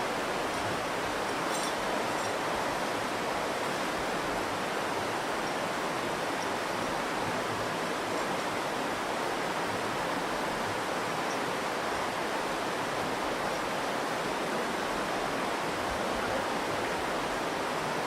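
The Virgin River rushing steadily: a constant, even roar of flowing water.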